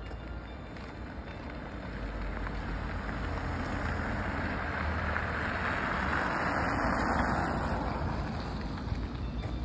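A car passing on a snow-covered street: its tyre and engine noise swells to a peak about five to seven seconds in, then fades, over a steady low wind rumble on the microphone.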